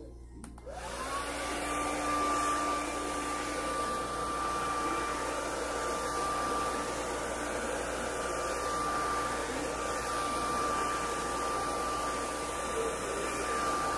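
Handheld hair dryer switched on about a second in, its motor whine rising as it spins up and then holding steady over a rush of air as it blows through hair.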